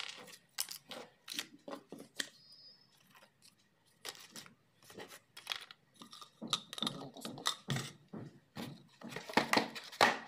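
Small household clutter (plastic odds and ends, phone cases, a cardboard box) being picked up, set down and shuffled by hand: irregular clicks, knocks and rustling, busier over the last few seconds.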